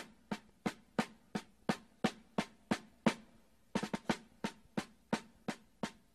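Music: a lone drum playing a march beat, single sharp strokes about three a second, with a quick run of strokes about two-thirds of the way through.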